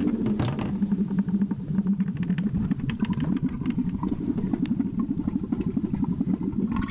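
Expired marine flare shells burning inside a sealed plastic bucket: a fast, fluttering rumble with many sharp crackles.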